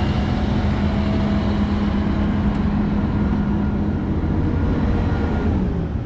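John Deere combine with a draper header running through standing grain: a steady engine drone with a strong low hum that sags slightly near the end.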